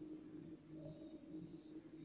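Near silence with a faint steady low hum.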